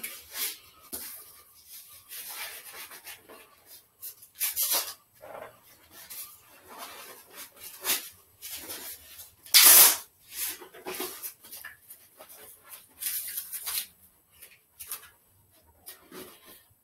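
Boxing gloves being pulled on and adjusted by hand: irregular bursts of rustling and scraping, the loudest about ten seconds in.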